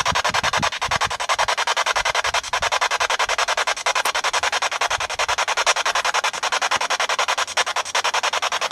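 Spirit box, a handheld radio scanner, sweeping rapidly through stations: a loud, even chopping of static and hiss, many times a second.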